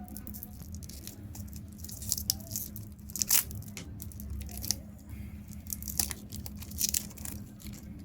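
A chocolate bar's wrapper being torn open and crinkled, in irregular sharp crackles with a few louder rips. A steady low hum runs underneath.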